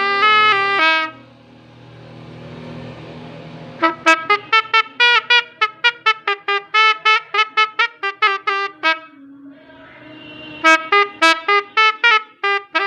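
Homemade telolet basuri horn made from toys, playing a multi-tone horn melody. Held notes stop about a second in and a rising hiss follows. Then come quick staccato notes, about four a second, broken near the end by a short hiss.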